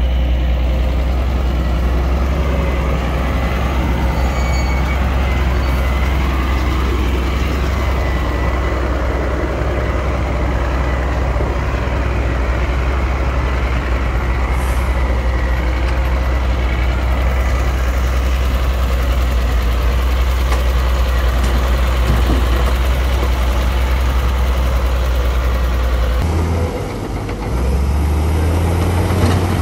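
Diesel engines of heavy earthmoving machinery running steadily, a constant low drone with mechanical noise over it. Near the end the sound changes abruptly.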